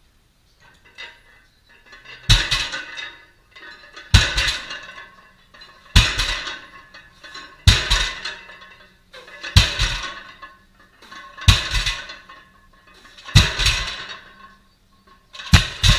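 Loaded barbell set down on the rubber gym floor at the bottom of each deadlift rep, the iron plates clanking and ringing. Eight reps, one about every two seconds.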